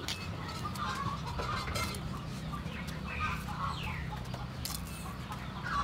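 Chickens clucking in short repeated calls over a steady low hum, with a few faint clicks.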